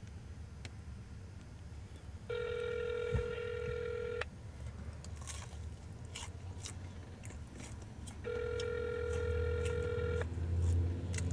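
Telephone ringback tone of an outgoing call ringing twice. Each ring is a steady tone lasting about two seconds, with about four seconds between them.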